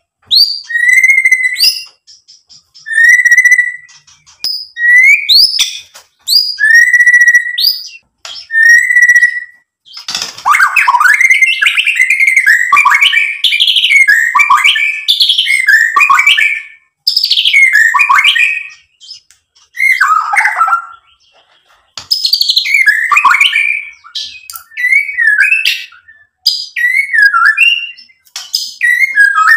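White-rumped shama singing. For about the first ten seconds it gives short phrases of a clear whistle with higher, rapid notes, one every two seconds or so. Then comes a long, unbroken run of fast, varied whistles, which breaks back into shorter phrases over the last ten seconds.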